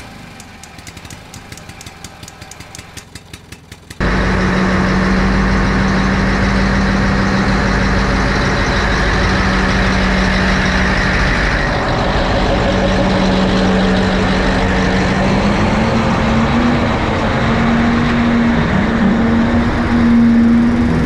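A large crane carrier's diesel engine cranking with rapid even clicks, then catching suddenly about four seconds in. It runs on loudly with a steady hum that rises slightly in pitch near the end.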